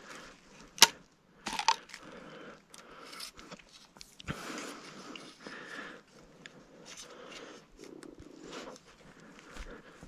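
Footsteps through grass and brush with rustling and crunching, and a sharp click about a second in, the loudest sound.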